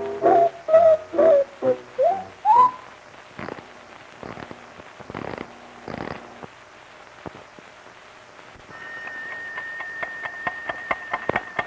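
Cartoon score and sound effects: a few short brass notes ending in an upward slide, then a few sharp clicks. From about nine seconds in a steady high note sounds, and a mended pocket watch ticks several times a second, showing it runs again.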